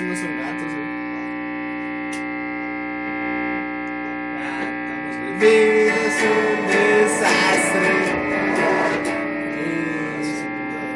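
A steady electrical hum with several pitches held together throughout. About five and a half seconds in, a louder jumble of sound rises over it for a few seconds.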